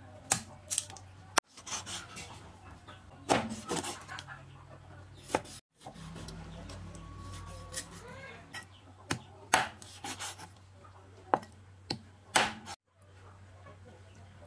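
Cleaver chopping raw meat and fish on a thick wooden chopping block: sharp knocks of the blade hitting the wood, coming singly and in short clusters at uneven intervals, with a few seconds' pause about halfway through.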